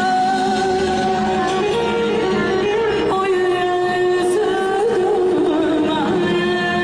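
Woman singing Azerbaijani mugham live over instrumental accompaniment, holding long notes with wavering ornaments and stepping to a new pitch about three seconds in.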